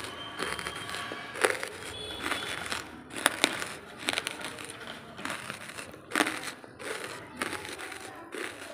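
Dry lumps of charcoal crunching: irregular sharp crunches, several louder ones scattered through, the loudest about a second and a half in, a little after three seconds, about four seconds in and about six seconds in.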